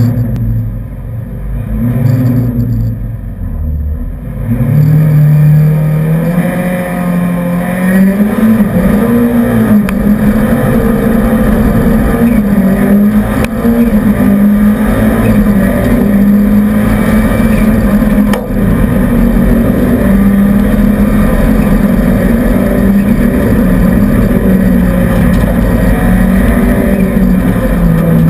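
Renault 5 GT Turbo rally car's turbocharged four-cylinder engine, heard from inside the cabin. It runs lower for a few seconds, then about four seconds in the car launches and the engine pulls hard at full throttle through the gears, its pitch rising and falling with shifts and corners.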